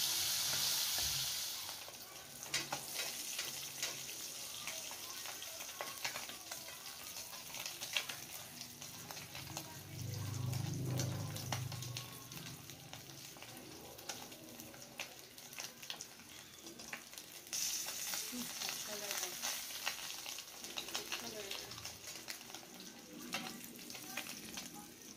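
Marinated amag-amag fish sizzling and crackling as it deep-fries in oil in a wok, with a metal spatula now and then scraping and turning the pieces. The sizzle swells briefly at the start and again about two-thirds of the way through.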